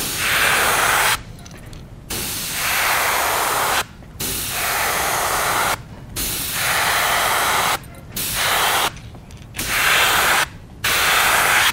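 Gravity-feed airbrush spraying paint in about seven bursts of steady hiss, each a second or two long, with short pauses between as the trigger is let off.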